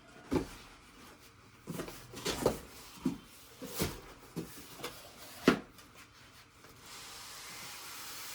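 Knocks, thumps and rubbing from a boxed studio monitor being handled and turned over as it is unpacked, about eight sharp knocks, the loudest about five and a half seconds in. A faint steady hiss starts near the end.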